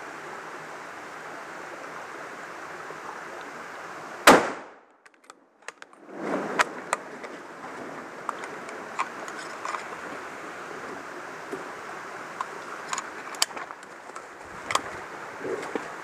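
A single close gunshot from a hunting gun about four seconds in, after which the recording drops to near silence for about a second and a half. A stream runs steadily under it, with small clicks and rustles of handling afterward.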